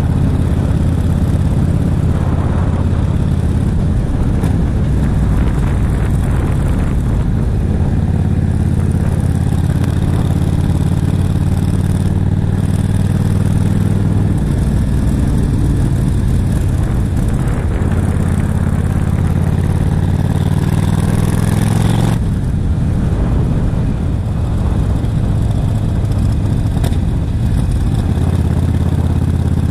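Yamaha XVS1300CU Stryker's V-twin engine running steadily while the motorcycle is ridden at road speed, with wind rushing over the camera microphone. About three-quarters of the way through, the wind rush cuts off and the engine note drops.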